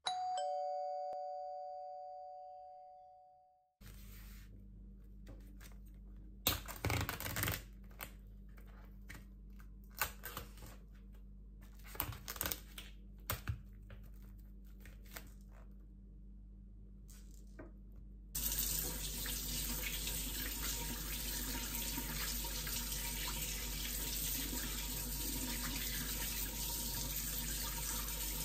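A two-note bell-like chime rings once and fades away over about four seconds. Then plastic wrap on a meat tray crinkles and tears with scattered clicks and taps. From about 18 seconds in, a kitchen tap runs steadily over raw chicken breast being rinsed in a stainless steel sink.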